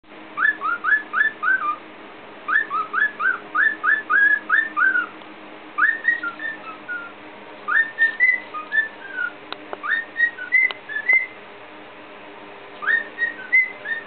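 Cockatiel whistling a learned human tune in short phrases of quick notes that rise and fall, with brief pauses between the phrases.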